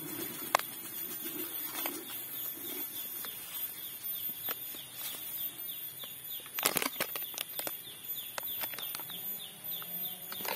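Granular MKP (monopotassium phosphate) fertilizer poured from a plastic bag into a bucket: a soft hiss of crystals with many small ticks as they land, and a few louder rustles about seven seconds in.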